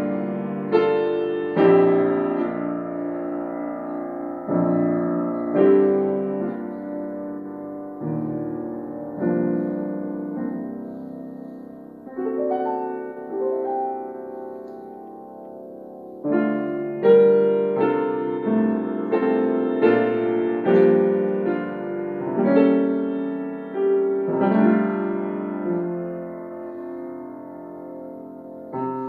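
Solo piano playing struck chords that ring and fade away. The playing is softer through the middle and grows louder again from about halfway through.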